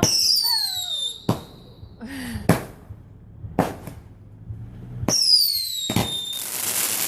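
Consumer fireworks going off. A whistling rocket screams down in pitch at the start, then several sharp bangs follow a second or so apart. A second falling whistle comes near the end, ending in a loud bang and a crackling hiss.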